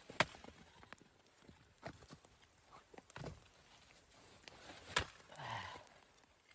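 A few sharp knocks or clicks spaced a second or more apart, the loudest just after the start and about five seconds in. Right after the last one comes a short, low vocal sound that falls in pitch.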